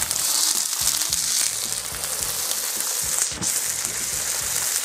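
Tomahawk steak sizzling and crackling in hot olive oil on a griddle plate, just turned over onto its other side. This is the initial sear before it is finished in the oven.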